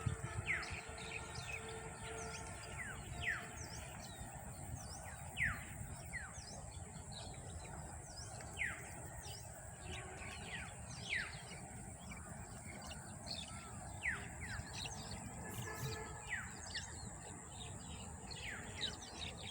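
Outdoor birdsong: several birds giving short, sharply falling chirps, one or two a second at irregular intervals, over a steady high-pitched hum and a low rumble of background noise.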